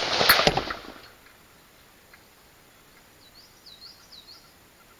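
The report of a .223 AR-15 rifle with a 16-inch barrel, fired at the very start, echoing and fading out within about a second. Then a quiet stretch in which a small bird chirps three times, around three to four seconds in.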